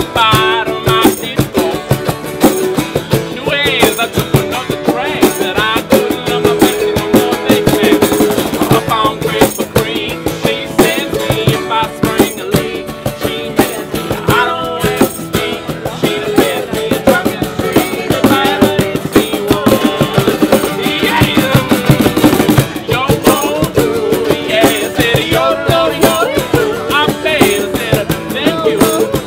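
Acoustic band playing on guitar, mandolin and cajon, with a steady percussive beat.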